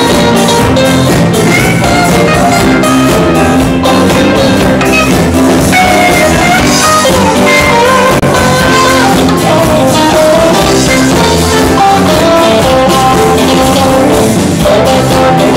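Live rock band playing a blues-rock number loudly: electric guitar, drum kit and keyboard.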